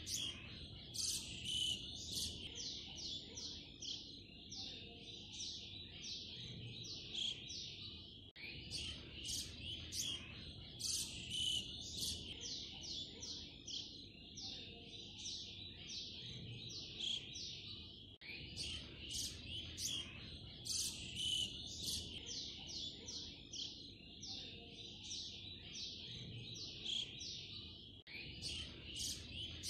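Birds chirping and twittering in a dense, busy chorus. It is a looped recording: the same stretch of about ten seconds repeats, with a brief dropout each time it restarts.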